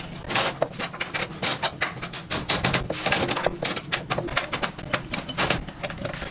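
A rapid, irregular run of clicks and knocks, several a second, over a low steady hum.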